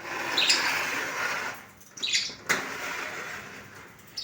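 Pet lovebirds squawking and chirping in their cage, with short calls about half a second in and a falling call about two seconds in.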